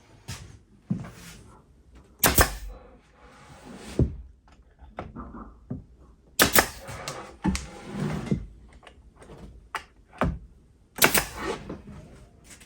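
Irregular knocks, thuds and clatter of objects being handled and set down, with the loudest strikes about two, six and eleven seconds in.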